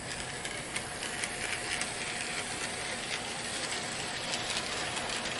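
Bachmann HO scale model locomotive running in reverse around the track, its small motor and gears giving a steady mechanical whir with fine rapid clicking. It grows slightly louder as it goes, running smoothly without jumping the track.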